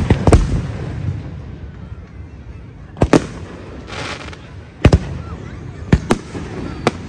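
Aerial firework shells bursting: a string of sharp bangs, some in quick pairs, over a low rumble, with a crackling hiss from crackle-effect stars about four seconds in.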